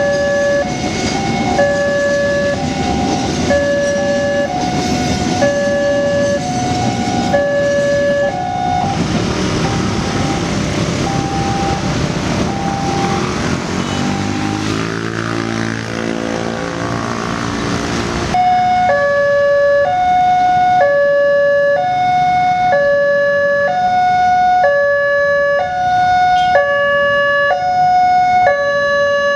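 Railway level-crossing warning siren sounding a two-tone alternating wail, switching pitch about once a second. For roughly ten seconds in the middle it is largely drowned by the heavy rolling noise of a passing train. After that the siren stands out clearly again.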